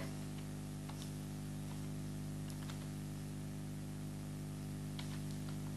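Steady low electrical mains hum with a few faint, scattered computer keyboard clicks, including a small cluster about five seconds in, as text is typed.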